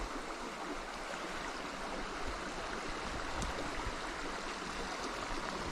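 Small rocky creek running steadily over a shallow riffle.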